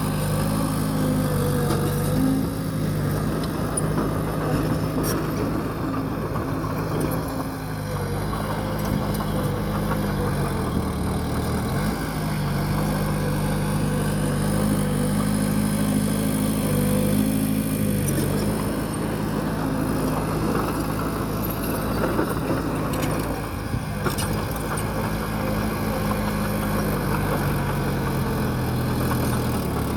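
Bulldozer's diesel engine working steadily, its engine speed dipping briefly about ten seconds in.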